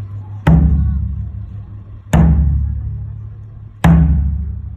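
Ōdaiko, a large Japanese barrel drum, struck three times with wooden bachi sticks at an even, slow pace about one and a half seconds apart; each hit is a deep boom that rings on and fades away.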